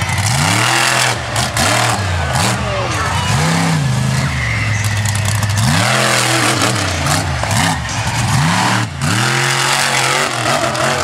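Monster truck engine revving hard, its pitch rising and falling again and again as the truck jumps the crushed cars.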